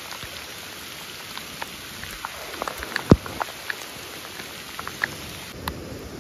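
Scattered sharp snaps and crackles as a clump of termite mushrooms is pulled from the ground, stems breaking and dry leaf litter crackling under the hands, the loudest snap about three seconds in, over a steady background hiss.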